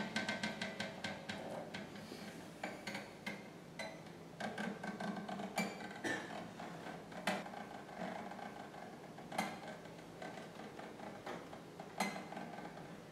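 Two combined guitars laid flat and played with extended techniques: a quick run of clicking taps in the first couple of seconds, then scattered sharp knocks and struck-string pings.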